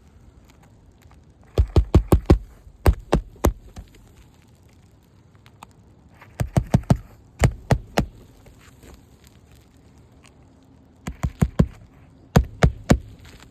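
Hammer driving roofing nails through a new asphalt shingle into the roof deck, in runs of several quick strikes with short pauses between nails.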